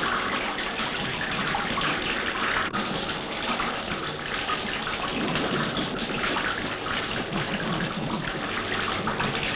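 Steady heavy rain falling on pavement and puddles.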